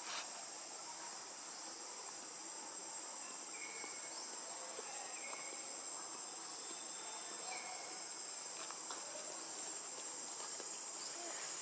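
Steady high-pitched insect chorus from the surrounding forest, with a few faint short chirps over it.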